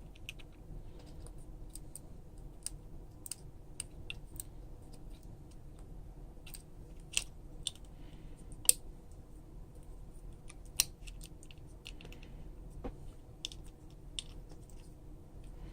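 Scattered small clicks and light taps of tools and parts being handled on an iPhone 5s during reassembly, with a few sharper clicks around the middle. A faint low hum sits underneath.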